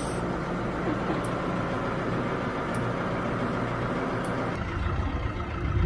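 Farm tractor engine running steadily. Its low rumble grows louder about four and a half seconds in.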